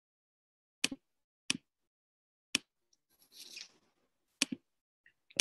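Four sharp clicks at uneven gaps of about one to two seconds, with a short soft hiss between the third and the fourth, heard through a video-call line that mutes everything between them to dead silence.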